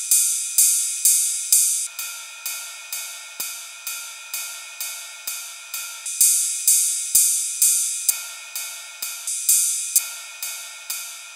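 Sampled ride cymbal playing a steady pattern on its own, one strike about every half second, each ringing out bright. Its fuller, lower ring drops away and comes back a few times as a parametric equaliser on the cymbal is switched out and in. With the equaliser in, the cymbal sounds more alive and less glassy.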